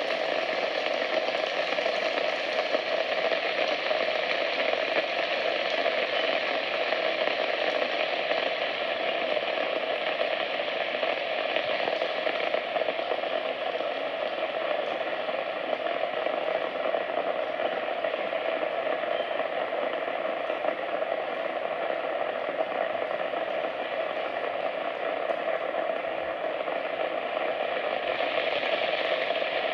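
Steady rain falling, a dense, even hiss with no individual drops standing out.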